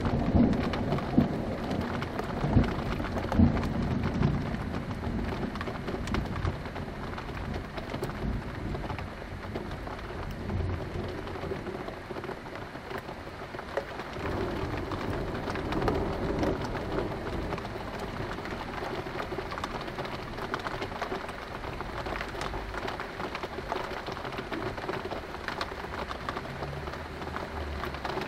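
Steady rain falling, with rolling thunder rumbling. The thunder is loudest in the first few seconds, then dies away, and swells again briefly about halfway through.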